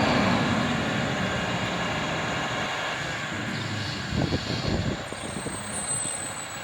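Garbage truck running, with a short burst of clattering knocks about four seconds in and a thin high whine that starts about five seconds in.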